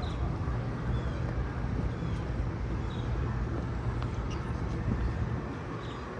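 Steady low rumble of city traffic, with short high chirps now and then.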